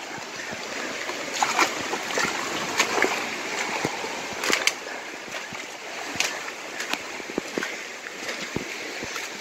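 Flash-flooded creek rushing steadily, with leaves and branches rustling and twigs snapping now and then as someone pushes through wet brush.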